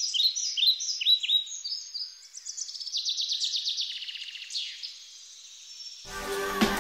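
Birdsong: runs of quick downward-sliding chirps, then fast trills and a longer falling whistle, all high-pitched with no low sound under them. Music comes in near the end.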